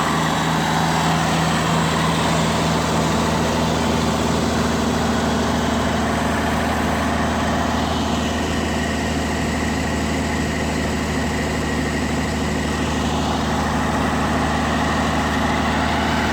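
International Farmall 706 tractor's diesel engine running steadily at one speed, just after its Bosch injection pump was rebuilt and reinstalled. It isn't responding to the throttle.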